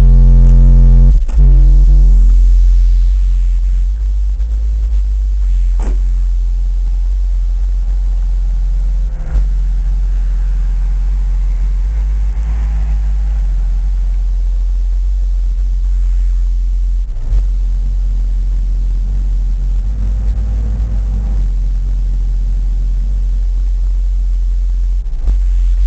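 Bass-heavy music from a 10-inch Memphis subwoofer on an 800-watt amp, heard from outside the car: the deep bass is steady and dominant while the rest of the music is muffled.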